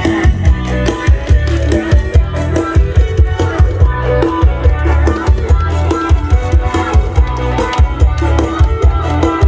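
Loud music with heavy bass and a steady drum beat, played through a stack of four homemade OD15 loudspeaker cabinets.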